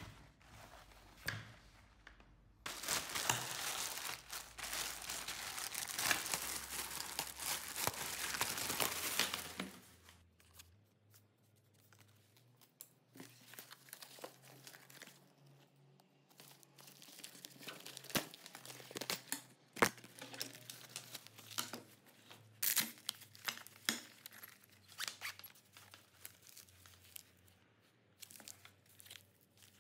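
Black nylon chest holster being handled by hand. A loud tearing rasp of hook-and-loop fastener being peeled apart runs for several seconds near the start. Quieter fabric rustles and a few sharp clicks of snaps and buckles follow.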